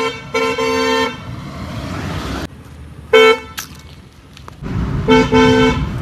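A newly fitted pair of Windtone car horns on a Hyundai Grand i10 sounding together in several short and long toots, spread across a few seconds, over the noise of the car driving.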